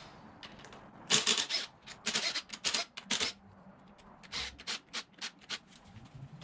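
Irregular sharp metallic clicks and clinks of a socket wrench and loose 13 mm bolts being worked off the intake plenum. They come in two clusters, starting about a second in and again about four seconds in.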